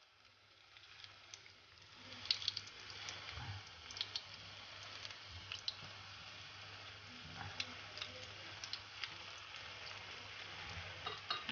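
Flour-and-egg-coated chorizo rolls sizzling in hot oil in a frying pan, with scattered pops and crackles. The sizzle swells from about two seconds in.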